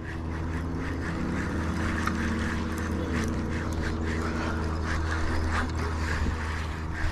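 Fishing reel being cranked steadily while a small channel catfish is reeled in: a whirring with faint, even ticks about three times a second, over a steady low hum.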